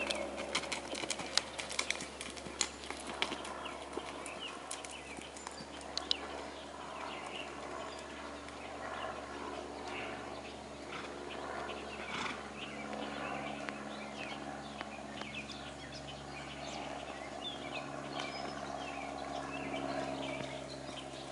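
Hoofbeats of a quarter horse gelding under saddle on arena sand, with sharp clicks thick in the first several seconds and thinning after, and birds chirping. From about twelve seconds in, a steady low droning hum joins.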